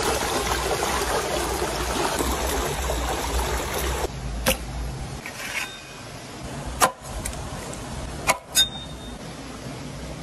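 Stream water rushing over rocks for about four seconds, cutting off abruptly, then four sharp, short knocks and clicks in a quieter background, the loudest about two-thirds of the way through.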